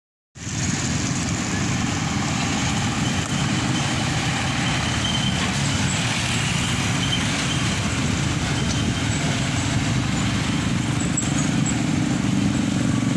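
Street traffic passing close by: a light cargo truck's diesel engine and tyres go by among cars and motorbikes, a steady rumble.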